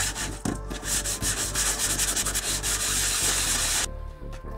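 Hand sanding of a small model part with quick back-and-forth strokes. It stops suddenly near the end, leaving faint background music.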